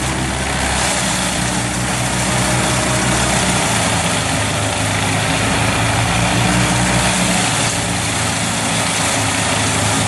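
Large tow-behind wood chipper running under load as its grapple crane feeds a whole conifer tree into it: a steady engine drone under a dense hiss of branches being shredded and chips blowing out. The low engine note shifts about four seconds in and again near seven and a half.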